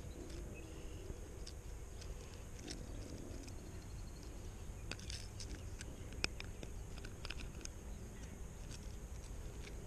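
Scattered small clicks and rattles of a plastic lure's treble hooks being worked free of a bass's mouth by hand, the sharpest click about six seconds in, over a steady low outdoor rumble.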